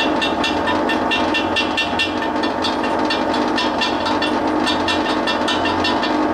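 Stick-welding arc crackling and sizzling steadily as a Certanium 889 cast-iron rod is run on DC straight polarity into a crack in a preheated cast iron drill table. A steady hum from the arc welder's cooling fan runs underneath. The fan is noisy because mud daubers have built nests on it.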